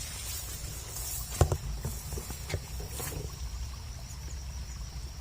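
Evening field ambience: a steady high insect trill over a low rumble of wind on the microphone, broken by a few short knocks and rustles, the loudest about a second and a half in.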